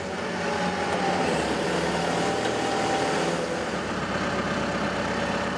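Telescopic forklift (telehandler) engine running steadily while its boom is worked out and in, with a thin steady whine over it for the first three seconds or so.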